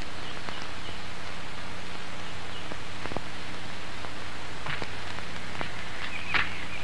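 Steady hiss with a low, even hum beneath it, the soundtrack's background noise, broken only by a few faint scattered clicks.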